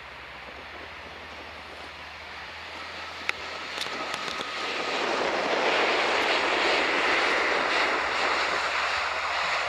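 Boeing 737-800's twin CFM56 jet engines growing steadily louder as the airliner rolls along the runway past the microphone, a rushing jet noise that peaks about six seconds in and stays loud. A single brief click about three seconds in.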